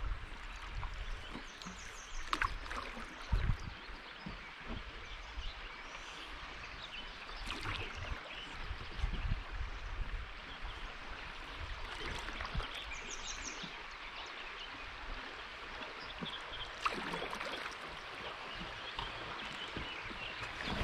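Birds singing in short repeated phrases over a steady rush of flowing river water, with a few low thumps scattered through.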